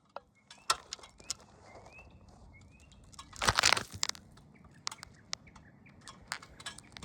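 Small birds chirping in short rising-and-falling notes, with scattered sharp clicks and a brief rough scraping burst about halfway through.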